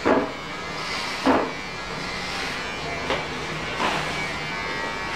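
Electric hair clipper running steadily during a child's haircut, with four short, sharp noises over it.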